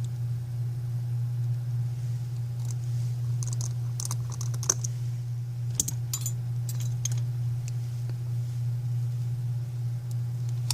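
A cluster of small, sharp clicks and taps from tools and parts being handled inside an opened iPhone 5c as it is closed up, including connectors and shields being fitted back. The clicks come in the middle of the stretch, and a steady low hum sits under them throughout.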